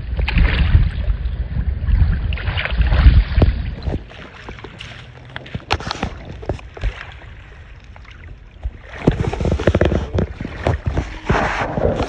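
Wind buffeting the microphone with a heavy low rumble for the first few seconds, then shallow water sloshing and splashing in short scattered bursts, busier again near the end.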